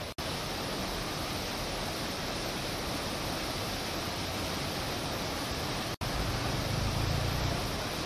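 Turbulent floodwater of a swollen river rushing steadily, a dense even hiss of churning water. The sound breaks off for an instant twice, near the start and about six seconds in, and after the second break a deeper rumble rises for a second or two.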